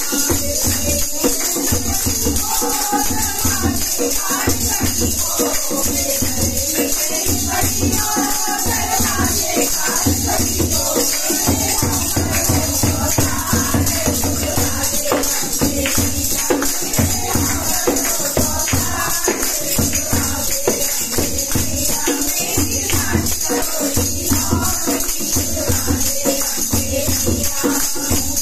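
A group of women singing a Hindi devotional bhajan together, with jingling hand percussion and a steady, regular low beat keeping time.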